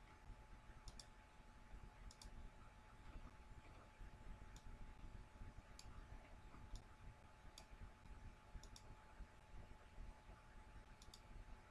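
Faint computer mouse clicks, about a dozen at irregular intervals, some in quick pairs, over a low steady hum.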